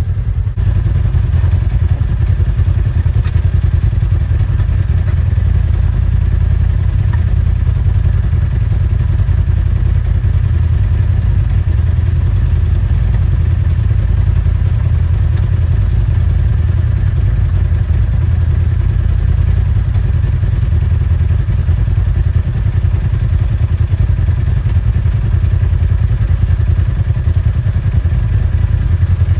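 Polaris RZR side-by-side engine idling steadily.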